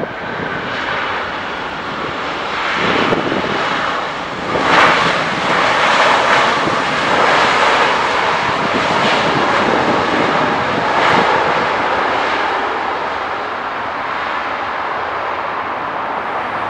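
Boeing 767-300ER's twin jet engines roaring during the landing rollout. The noise swells about three seconds in and peaks around five seconds, as the reverse thrust builds, then eases off over the last few seconds.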